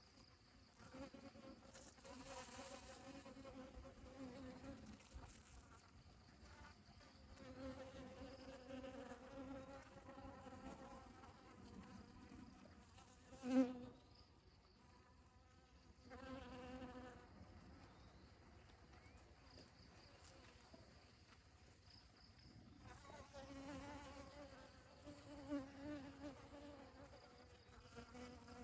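Faint buzzing of honeybees in flight, the hum swelling and fading in bouts of a few seconds as bees fly close and away. One brief sharp knock about halfway through.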